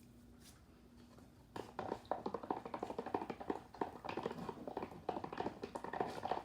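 Wet clear-slime mixture being stirred and squished, a fast irregular run of sticky clicks and squelches that starts about a second and a half in; the slime has not yet formed.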